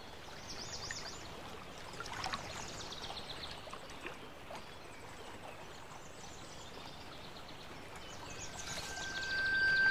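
Outdoor riverside ambience: a steady hiss like running water, with small birds singing three short phrases of quick, high repeated notes. Soft music tones come in near the end.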